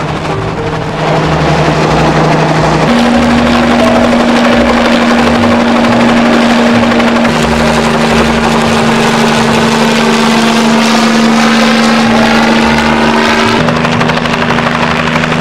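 Small piston-engined bubble-canopy helicopter flying low overhead and hovering, its engine and rotor running loud and steady with a rhythmic rotor chop.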